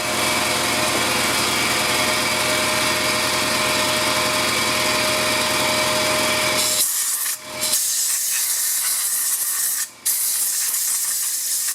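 Compressed air blasting dust out of a small space heater: a loud, steady rushing hiss that turns thinner and higher about seven seconds in, cutting out briefly twice.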